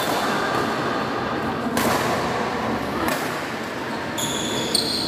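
Badminton rackets striking the shuttlecock in a rally: three sharp hits about one and a half to two seconds apart, echoing in a large hall, with a few high squeaks near the end.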